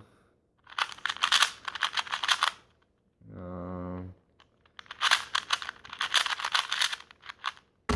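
KungFu 2x2 speed cube being turned quickly during a solve: two runs of rapid plastic clicking, split about halfway by a short hummed "mm" from the solver.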